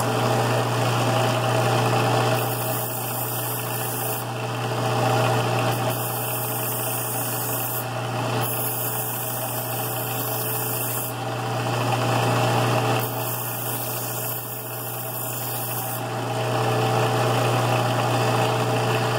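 Delta belt sander running with a steady low hum, while the small end of a steel connecting rod is pressed against the belt in several short spells of grinding, taking a smidge of weight off to balance the rod.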